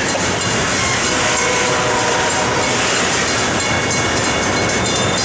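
Loaded freight train rolling past, its steel wheels clattering steadily over the rails, with faint thin steady squeals from the wheels.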